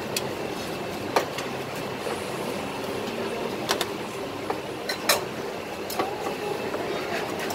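Steady kitchen background din with several sharp, irregularly spaced knocks of a cleaver and meat on a thick round wooden chopping block.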